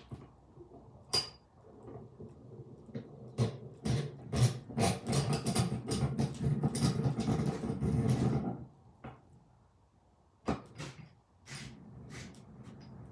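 A bench vise being handled and worked: scattered knocks, then a dense run of quick clicks and rattles for about five seconds, then a few more knocks near the end.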